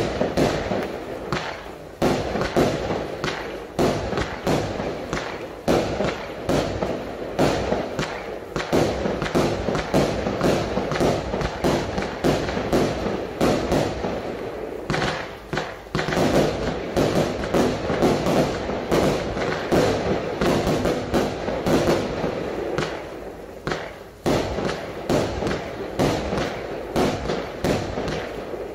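Cube Fireworks Haymaker, a 78-shot firework barrage cake, firing continuously: shot after shot of launches and aerial bursts, with dense sharp pops between them.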